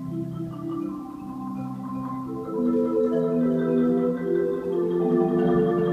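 Solo marimba playing held chords, getting louder about two and a half seconds in.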